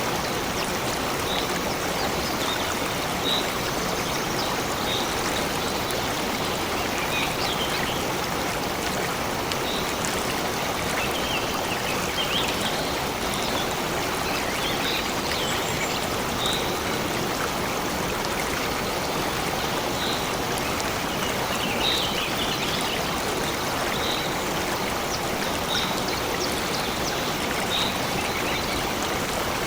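A stream running steadily, with short high bird chirps scattered throughout.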